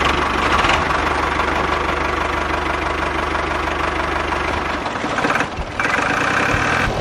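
Tractor engine sound effect idling with a rapid, steady knock; about five seconds in the deep beat drops away and a higher, brighter engine tone carries on, broken by a brief dip.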